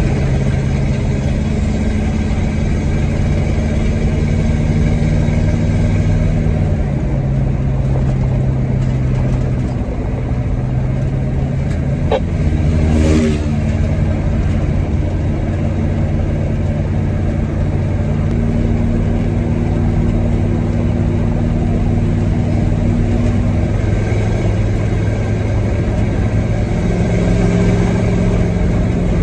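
Diesel engine of an ex-US military truck running steadily on the road, its note shifting pitch a few times as speed and gears change. A short sharp sound and a brief passing sweep come about halfway through.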